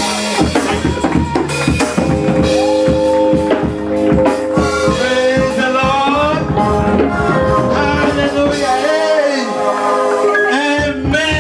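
Live gospel reggae band playing: drum kit hits under held and wavering sung notes and instruments.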